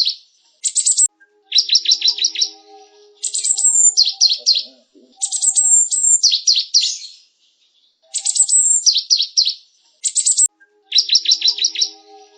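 Cinereous tit (gelatik batu) singing: about seven bursts of rapid, high chattering notes mixed with quick down-slurred whistles, each burst a second or two long with short pauses between.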